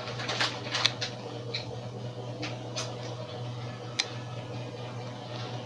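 Soldering iron and fingers handling a small amplifier circuit board: scattered light ticks and clicks, the sharpest about four seconds in, over a steady low hum.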